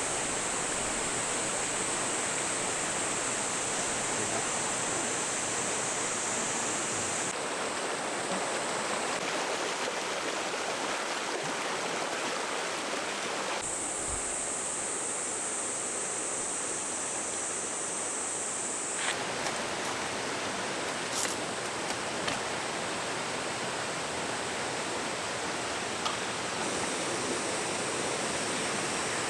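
Valley stream flowing steadily, an even rushing water noise.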